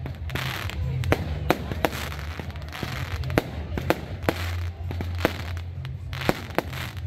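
Fireworks bursting overhead: a rapid, irregular series of sharp bangs and pops, over a low steady rumble.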